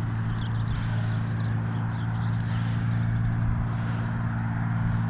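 Footsteps walking on grass with light scattered clicks, over a steady low mechanical hum.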